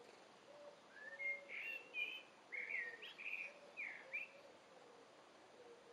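A songbird sings one short phrase of quick chirping notes, faint and outdoors. Softer low notes repeat in the background.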